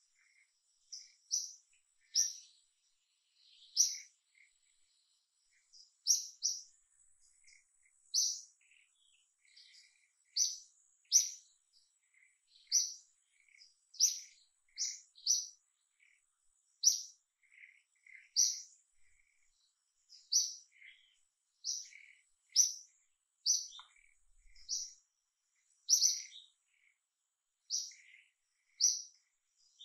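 A bird chirping over and over in the forest canopy: short, sharp, high notes about once or twice a second, often in quick pairs, with softer lower notes in between.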